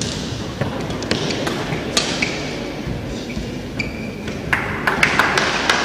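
Badminton singles rally: a string of sharp racquet strikes on the shuttlecock at irregular intervals, with short squeaks of court shoes on the court mat, echoing in a large sports hall.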